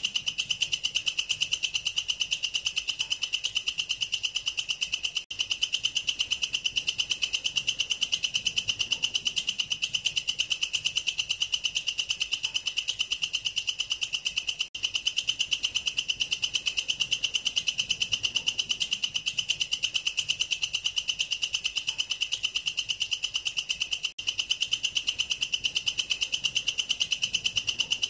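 A katydid (belalang kerek, a bush cricket of the family Tettigoniidae) stridulating. Its call is a continuous, high-pitched, rapidly pulsed 'creeeet', which breaks off for an instant about every nine to ten seconds.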